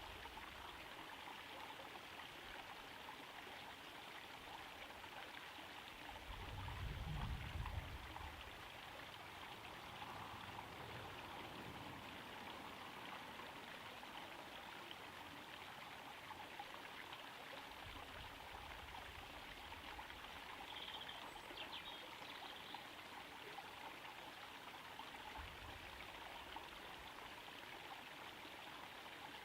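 Small garden pond waterfall trickling and splashing steadily into the pond. A few brief low rumbles come through, the loudest about seven seconds in.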